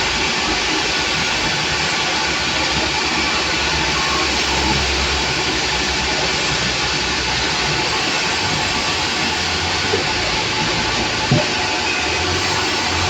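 Sawmill machinery running with a loud, steady noise, with a short knock a little before the end.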